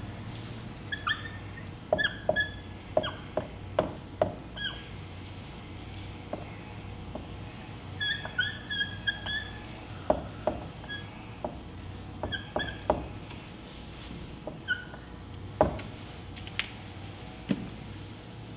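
Dry-erase marker squeaking on a whiteboard as Arabic letters are written: clusters of short, high squeaks with pauses between strokes, mixed with light taps and a few louder taps.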